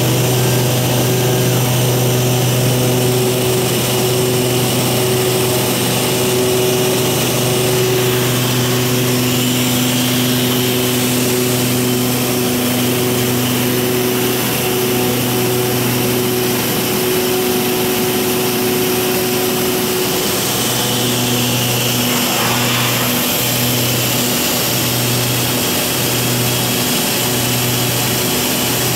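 Cabin drone of the Antonov An-38-100's twin turboprops, Honeywell TPE331 engines with their propellers, running steadily in the climb. About two-thirds of the way through, the low propeller tone begins to throb about once a second.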